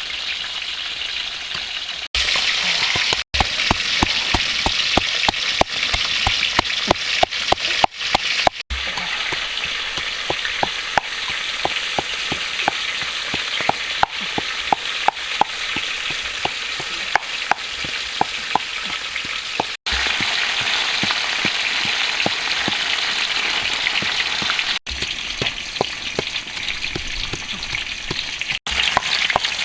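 Food sizzling as it fries in hot oil: a steady crackling hiss with many sharp pops and clicks, broken by several sudden brief cut-offs.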